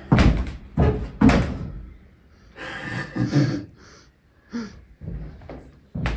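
A series of sharp knocks and bangs, three hard ones in quick succession at the start and smaller ones later, with a brief scraping rustle in between.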